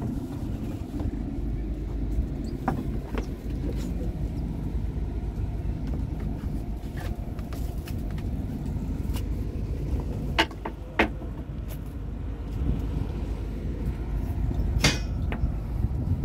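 A generator on a fishing boat running with a steady low rumble, powering the LED fishing lamps. A few sharp knocks come about ten and eleven seconds in and near the end.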